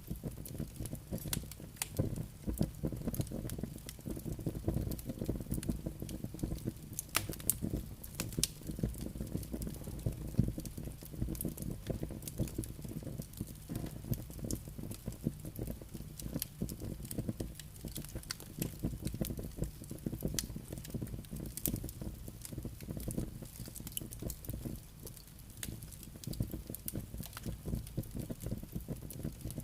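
Campfire crackling: irregular sharp pops and snaps throughout, over a low steady rumble.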